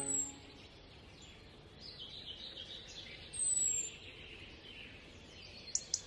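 Birds chirping over a faint hiss, with a high, falling whistle that comes back about every three and a half seconds; background music cuts off just at the start, and two sharp clicks come near the end.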